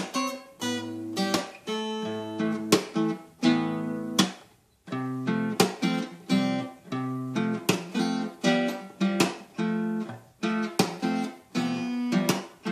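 Steel-string acoustic guitar with a capo, playing a slow chord progression: chords struck one after another, about one or two a second, letting each ring, with a short break about four and a half seconds in.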